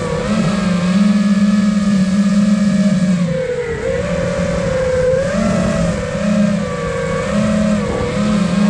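Electric motors and propellers of a 5-inch FPV quadcopter (iFlight Nazgul Evoque 5 on a 4S 14.8 V battery) buzzing in flight, the pitch rising and falling with the throttle, with a dip about three and a half seconds in and a climb again near five seconds.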